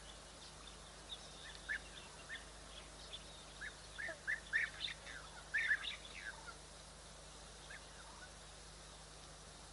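Short, high chirping calls, a dozen or so, bunched in quick clusters from about four to six and a half seconds in, with a few scattered ones before and after, over a faint steady hiss.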